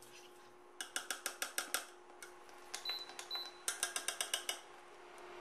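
Wire whisk stirring thick béchamel sauce in a stainless steel saucepan, its wires clicking rapidly against the side of the pan in two quick runs, with a few scattered clicks between them. A faint steady hum runs underneath.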